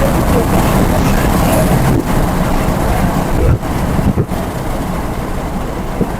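Mahindra Thar driving off-road: engine and rumble from the rough ground, steady and loud, with wind on the microphone.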